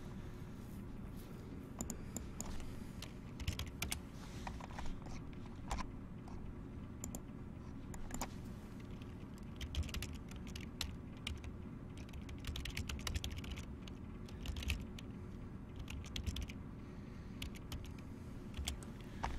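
Typing on a computer keyboard: irregular bursts of key clicks over a faint steady hum.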